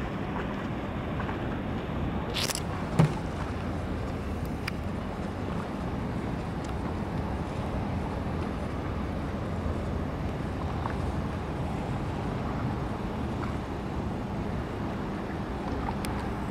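Steady city background noise of distant road traffic, with a sharp click about three seconds in and a few fainter clicks around it.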